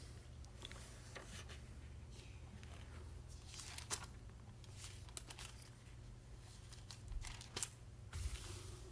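Thin pages of a Bible being leafed through by hand: a few short paper rustles and flicks, with a crisp page swish near the end, over a low steady hum.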